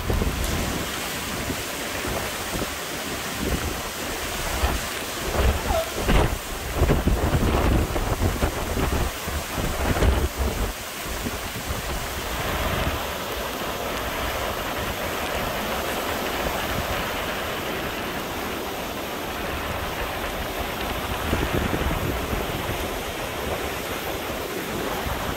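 Strong, gusty hurricane wind: gusts buffet the microphone hard for the first ten seconds or so, then settle into a steadier rushing of wind with surf breaking behind it.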